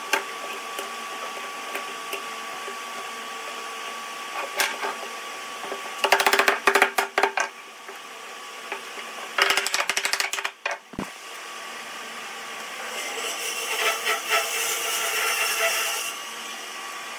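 Workshop machinery running steadily with a faint whine, broken twice by bursts of rapid clattering, about six and about nine and a half seconds in; a rushing noise swells near the end.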